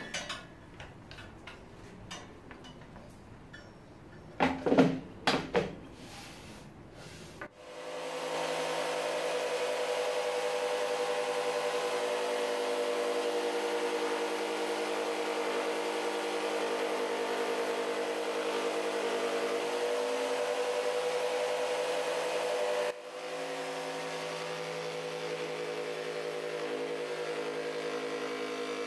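A few knocks and clicks as the jigsaw's mounting plate is handled and seated in the table, then a corded Ryobi jigsaw mounted upside down under the table starts about 8 seconds in and runs steadily while a piece of pine is fed through its blade. About 23 seconds in the sound breaks off for a moment and carries on slightly quieter.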